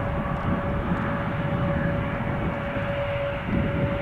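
Airbus A321neo's Pratt & Whitney geared turbofan engines running at taxi power: a steady rumble with a constant whine held on one pitch.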